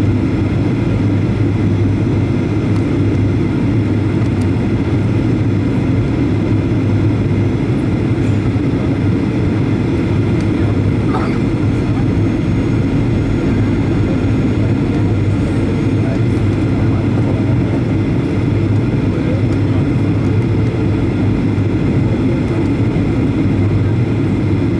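Steady, loud cabin noise of a Boeing 737-800 on approach, heard from a window seat beside the wing: the CFM56-7B engine's drone with a deep hum under the rush of air.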